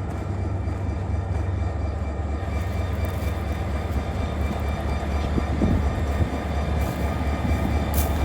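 Diesel freight locomotives idling: a steady low engine rumble with faint steady whining tones above it.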